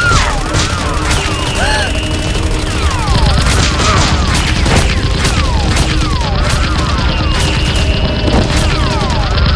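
Added gunfire sound effects: rapid volleys of shots mixed with repeated swooping laser-like zaps, over a steady bass-heavy music track.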